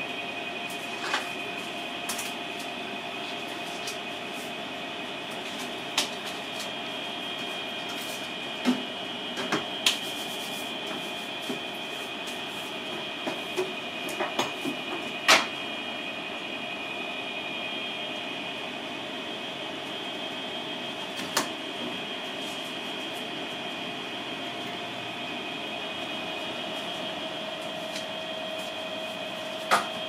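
Steady background hum with a faint high whine, broken every few seconds by sharp single clicks, the snips of small scissors shaping a hot candy beetle. The loudest click comes about halfway through.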